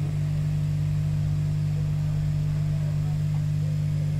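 Steady low machine hum that holds an even level and pitch throughout.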